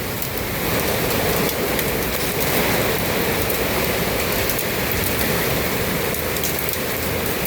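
Hail and heavy rain pelting a porch awning: a dense, steady patter with many sharp ticks from hailstones striking it.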